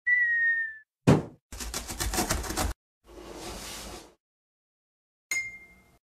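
Cartoon sound effects of an animated intro: a short whistle tone that dips slightly, a falling swoosh, a quick rattle of rapid taps, a hiss, then a bright ding that rings out near the end.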